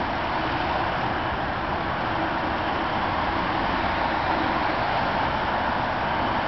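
Steady, even roar of vehicle and road noise, with no siren or horn in it.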